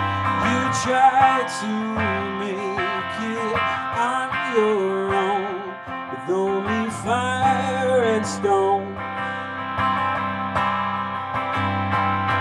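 A man singing over his own strummed archtop electric guitar, the voice bending and wavering in pitch on held notes.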